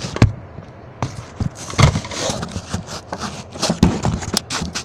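Irregular clicks, knocks and scrapes of close-up handling: a toy potato gun being fumbled with and set up to fire.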